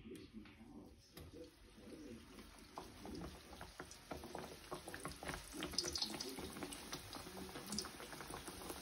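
Fry bake dough frying in hot oil: a bubbling sizzle with many fine crackles, growing louder about three seconds in.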